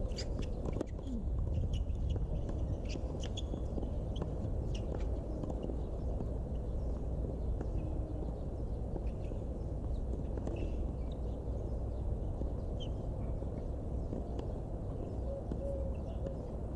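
Outdoor tennis-court ambience: a steady low rumble under scattered sharp pops of tennis balls being struck and bouncing, with brief high squeaks.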